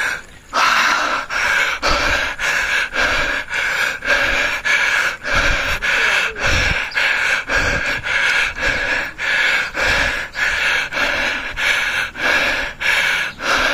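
A cyclist's hard, rhythmic panting, about two to three breaths a second, from the effort of pedalling up a steep climb.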